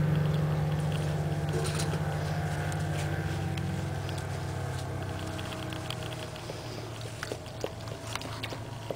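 A low, steady engine drone, loudest at first and slowly fading away, with a few faint light clicks in the later part.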